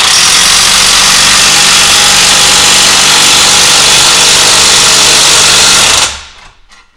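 Handheld power tool running loudly and steadily for about six seconds, then winding down.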